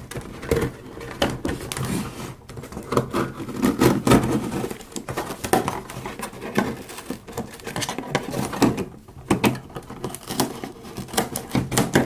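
Toy packaging being handled: rustling and irregular clicks and taps as a toy car is worked free of its box.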